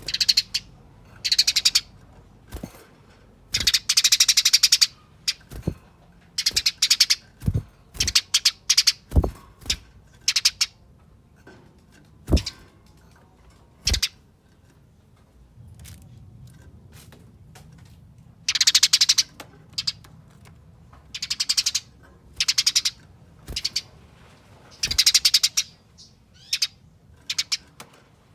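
Eurasian tree sparrows giving rapid, dense chattering fighting calls in bursts of about a second, over and over with short pauses between. Several sharp knocks fall between the bursts in the middle.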